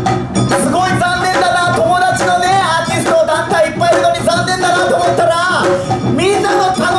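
Dance music with a singing voice carried over steady percussion.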